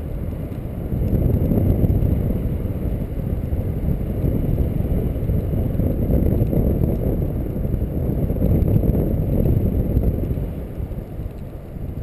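Airflow of paraglider flight buffeting the camera microphone: a steady low rumble of rushing wind. It grows louder about a second in and eases near the end.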